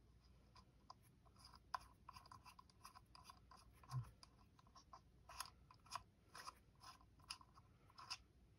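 Faint small metallic clicks and scratches of a machine screw being turned by hand into a metal scope mount, with a soft thump about four seconds in. The screw starts but binds, which is put down to a burr in the threads.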